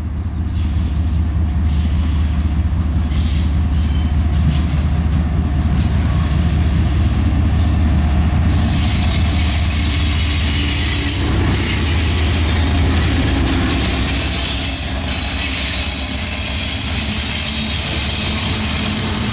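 Norfolk Southern double-stack freight train approaching and passing behind a GE ES44DC and an EMD SD70M-2 diesel-electric locomotive, the engines giving a steady low drone. From about eight seconds in, as the locomotives and well cars roll past, high-pitched wheel squeal and rail noise join in.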